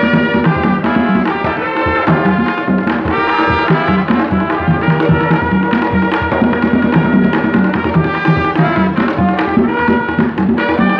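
Live Haitian folkloric music: a group of painted barrel hand drums beating a steady driving rhythm under trumpets playing a melody.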